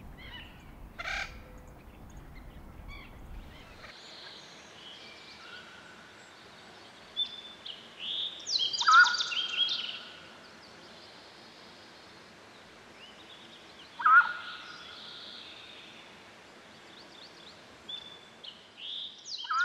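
Birds calling over quiet outdoor ambience: loud, rapid, rattling calls about nine seconds in, again about fourteen seconds in and once near the end, with fainter chirps between. A low rumble stops about four seconds in.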